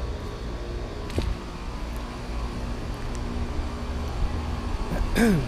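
Outdoor central air-conditioner condensing units running together: a steady compressor hum with fan noise, with a small click about a second in.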